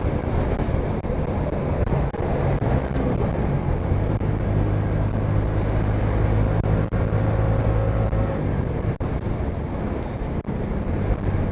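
Bajaj V15's single-cylinder 150 cc engine running at highway speed, a steady hum, with heavy wind rush over the microphone.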